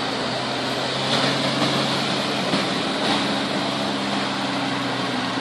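Fire engine's diesel engine running with a steady low drone as the truck drives past, over street noise.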